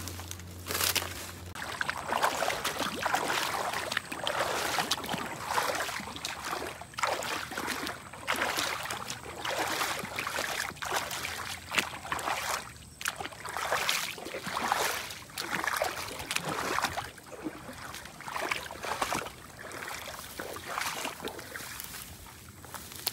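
Footsteps of boots wading and splashing through shallow water at a steady walking pace, about one step a second, later brushing through tall dry grass near the end.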